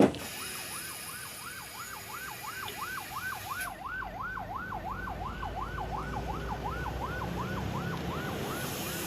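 A sharp click, then a toy's electronic siren wailing rapidly up and down, about three times a second, without stopping.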